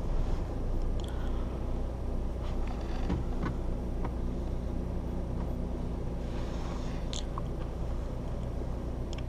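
Mini Cooper S F56's turbocharged four-cylinder engine idling steadily, a low hum heard from inside the cabin, with a few small clicks and rustles of handling in the car.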